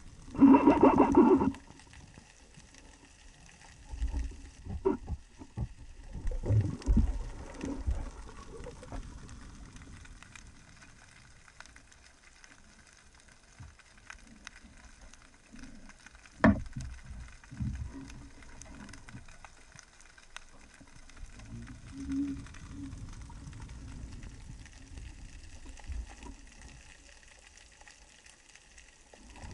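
Underwater sound heard through a speargun-mounted camera: a loud gurgling rush of air bubbles in the first second or so, then scattered low thuds and knocks from the diver's movements, with one sharp click a little past the middle.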